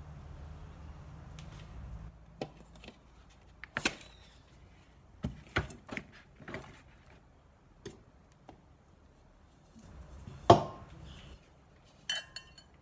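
A metal tube cake pan and a ceramic plate knocking and clinking while a baked ring cake is turned out of the pan onto the plate: a series of separate short knocks, with one sharp loud knock about ten seconds in and a brief ringing clink near the end.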